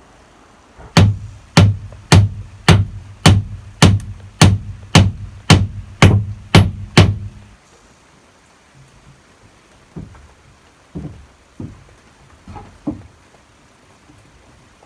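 Hammer blows on wood during construction: about a dozen sharp, evenly spaced strikes, about two a second, each with a deep thud. After a pause come a few lighter, irregular knocks.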